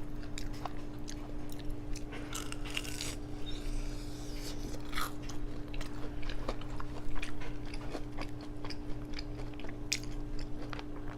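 Close-mouthed chewing of hot-Cheeto-crusted chicken, with many short, sharp crunches at irregular intervals.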